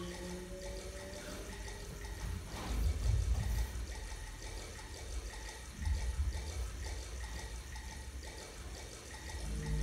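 Rushing, water-like noise, likely a soundscape played for the dancer to react to, with low rumbling swells about three seconds and six seconds in.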